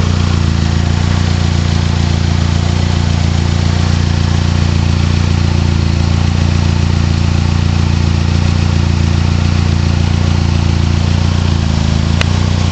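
Ford Mustang SVO's turbocharged 2.3-litre four-cylinder idling steadily in gear against the brakes, heard from under the car near the exhaust. A single sharp click comes near the end.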